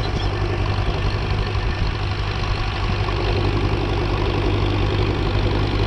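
Engine running steadily with a strong low hum and no change in speed.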